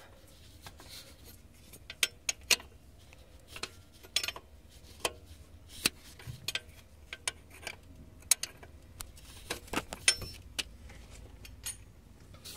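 A steel 16 mm wrench clinking on the alternator's lower mounting bolt and bracket as the bolt is worked loose. It makes a string of irregular, sharp metal clicks.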